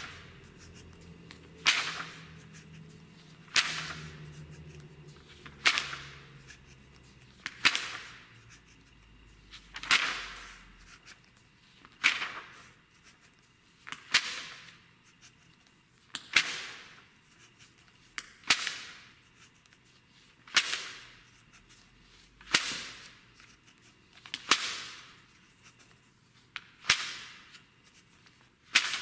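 Magazine pages being turned one at a time by hand: a sharp flick of the page followed by a short fading swish, about every two seconds.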